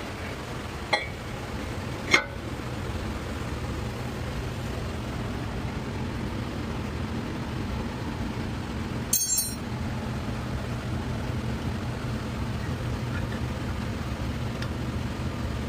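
Metal tools clinking in a workshop: two sharp clicks about a second and two seconds in, then a ringing metallic clink about nine seconds in, over a steady low hum.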